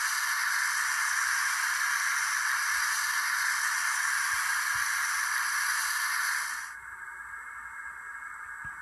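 Steam blowdown sound effect from the Bachmann N-scale Berkshire's factory-installed DCC sound decoder, played through the locomotive's onboard speaker: a loud, steady hiss that cuts off about seven seconds in, leaving a fainter hiss.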